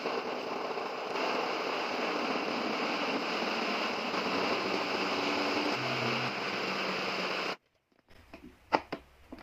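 Electric blender running steadily, blending a thick fruit smoothie; the sound cuts off suddenly about seven and a half seconds in.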